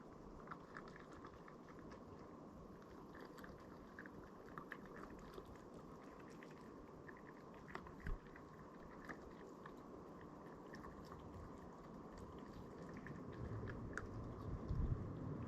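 Faint, irregular small clicks and crackles over a low hiss. Wind begins buffeting the microphone near the end.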